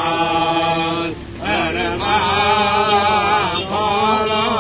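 A man singing a devotional chant in an ornamented, wavering melody. He breaks off briefly about a second in and then takes up the next phrase.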